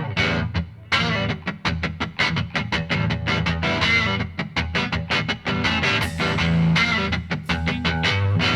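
Rock music with guitar playing loud through a sound system under test, with a strong, steady bass and a brief break about a second in.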